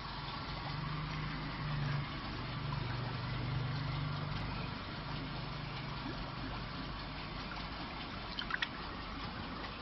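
Water sloshing and splashing in a shallow aerated goldfish tub as a hand stirs the water and scoops up a fish, over a low hum that fades out about halfway through. A few brief splashes near the end.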